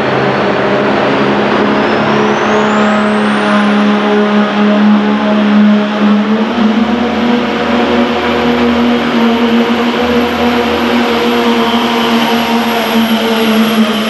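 Cummins diesel in a ProStock pulling truck running hard under load while pulling the sled. Its turbocharger whistle rises steeply over the first few seconds, then holds a high, steady pitch over the steady engine note.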